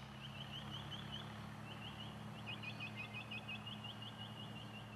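A bird calling faintly in forest: runs of short, high chirps on one pitch, coming faster from about halfway, over a faint steady low hum.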